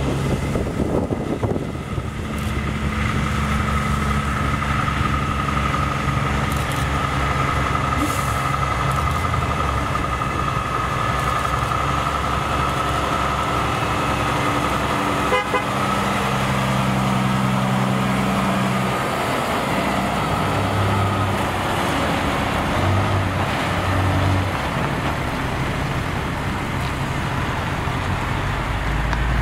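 Heavy diesel truck engine running as a tipper truck drives slowly past and away, with a high steady whine over the engine for much of the pass.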